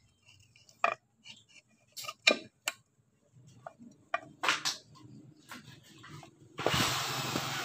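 Scattered sharp metallic clicks and clinks of small parts being handled and fitted on a motorcycle's aluminium clutch cover. Near the end a much louder steady rushing noise with a low hum sets in.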